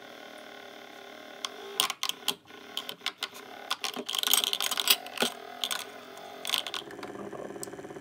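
Mini beauty-blender washing machine's small electric motor running with a steady hum, churning soapy water around a makeup brush. A string of sharp clicks and knocks comes in the middle.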